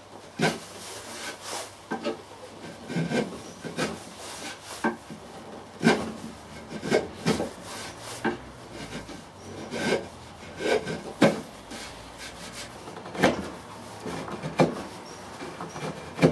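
Hand chisel paring the edge of a pine board: a series of short scraping shaving cuts, about one a second, some sharper than others.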